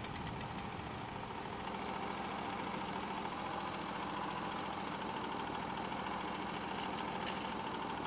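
Sawmill's 23 HP Briggs & Stratton gasoline engine running steadily.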